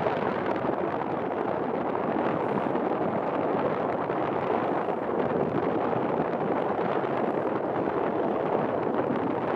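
Steady wind rushing over the microphone, an even noise with no distinct events.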